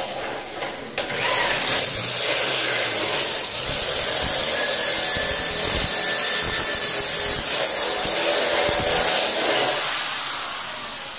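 Corded electric drill running at full speed, drilling into an aluminium door jamb. It starts about a second in, runs steadily, then winds down with falling pitch near the end.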